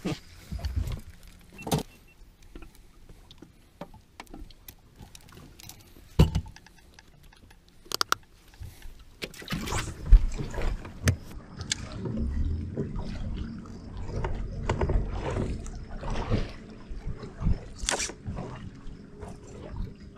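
Knocks and clicks of gear being handled on a boat deck. About halfway through, a bow-mounted electric trolling motor starts a steady hum, with rubbing and bumping close to the microphone over it.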